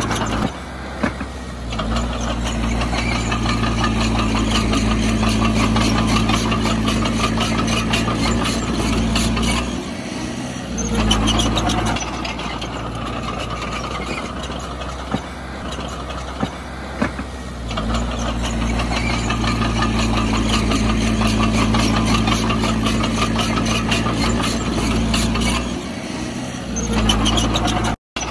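Heavy diesel earthmoving machinery working, its engine drone swelling and easing in turns every several seconds as the load changes, with steady metallic clatter over it. The sound cuts out for an instant near the end.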